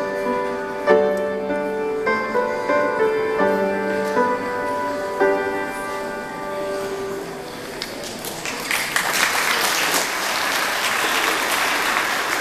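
Children's recorder ensemble playing a slow tune in sustained notes, ending about seven and a half seconds in. Audience applause then starts and swells until the end.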